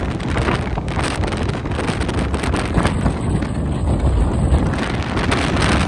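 Car driving along with heavy wind buffeting the microphone over a steady low road rumble.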